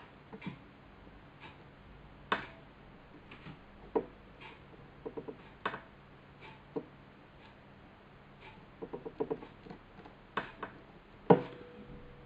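Light clicks and taps from a soldering iron and the opened flash head of a Nikon SB800 being handled while a replacement flash tube's wires are soldered, with small quick runs of clicks and one sharper click near the end that leaves a brief ringing tone. A faint tick about once a second runs under it, with a low steady hum.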